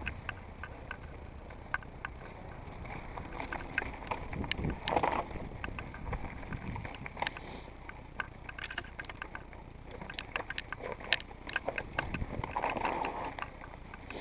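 Mountain bike rolling down a rough dirt singletrack: steady tyre and trail rumble with frequent irregular clicks and rattles as the bike runs over stones and roots.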